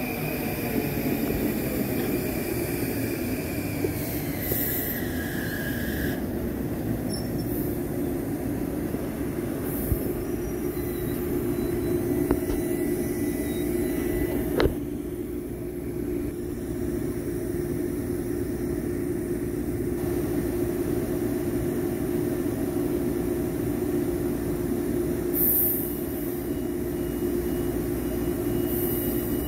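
Long Island Rail Road M9 electric train coming to a stop: its traction motors whine down in pitch over the first six seconds as it brakes, then a steady electric hum while it stands. Short hisses twice and one sharp clank about halfway through.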